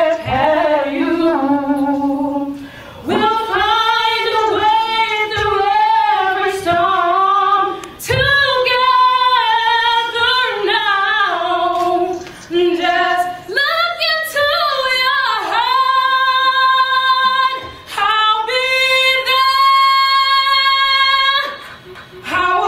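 A woman singing a slow song in phrases of a few seconds, with a long held note near the end.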